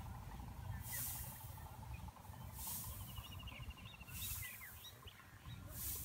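Open-field ambience: soft hissing bursts about every second and a half, a bird's short run of chirps near the middle, and a steady low wind rumble.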